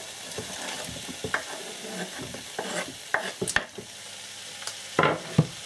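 Onions, carrots and freshly added green peppers sizzling in a hot pan while being stirred, with scattered scrapes and knocks of the utensil against the pan, the loudest about five seconds in.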